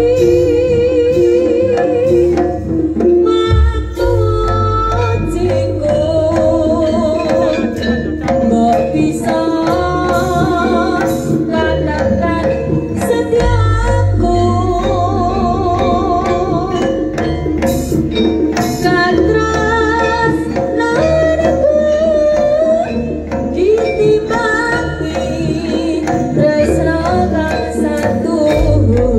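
Live jaranan music from a Javanese percussion ensemble: hand drums and a deep low end under a wavering melody with heavy vibrato, likely sung.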